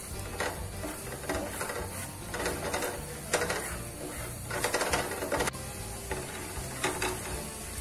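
Black slotted spatula stirring chopped garlic in butter in a nonstick frying pan: irregular scraping strokes every half second to a second over a light sizzle, as the garlic is browned.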